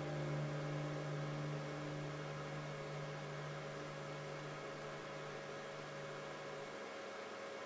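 A steady low hum over faint hiss, with fainter higher tones dropping away partway through; the hum cuts off near the end.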